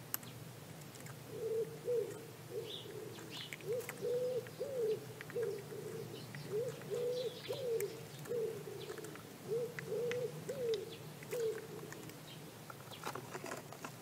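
A pigeon or dove cooing: low, hollow coos sung in about four repeated phrases of several notes each, stopping a couple of seconds before the end.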